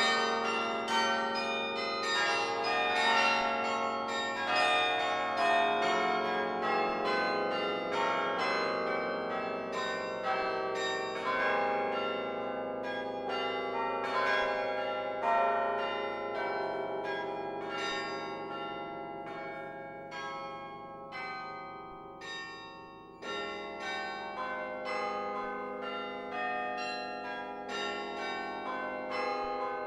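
The Laura Spelman Rockefeller Memorial Carillon's bells played from the baton keyboard: a quick, steady stream of struck bell notes ringing over one another. The notes thin out and grow quieter about two-thirds of the way in, then a fuller chord with deep bass bells sounds and the playing goes on.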